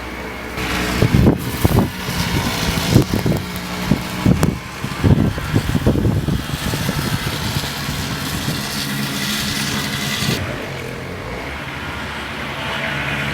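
Blizzard wind gusting hard against the microphone, with irregular low buffeting thumps over a hiss of wind-driven snow. The gusts ease about ten seconds in, leaving a steadier hiss over a low hum.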